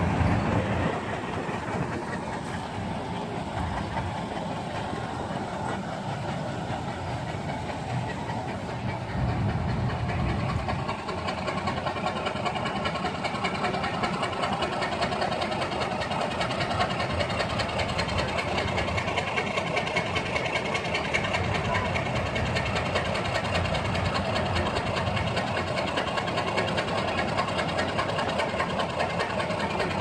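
Vintage crawler crane's engine running steadily, louder for a couple of seconds about nine seconds in.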